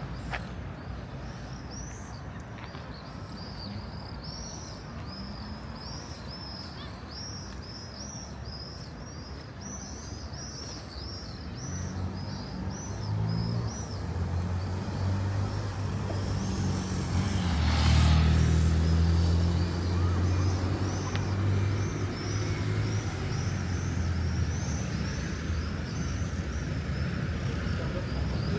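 A motor vehicle's engine hum grows from about twelve seconds in and is loudest with a brief hiss around eighteen seconds, then carries on at a lower level. Over it a bird chirps repeatedly, a few short high calls a second, throughout.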